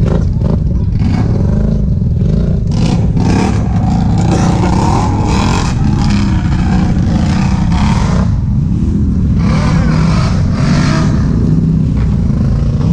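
ATV engine revving in repeated surges under load while pushing through mud, over a steady low engine drone.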